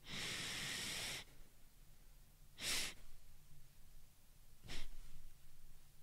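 A man's three sharp inhales through the nose, taken without breathing out in between. The first is deep and lasts about a second, the second is shorter and comes about two and a half seconds in, and the third is very brief and comes near five seconds. This is the triple-inhale breathing technique for stopping hiccups.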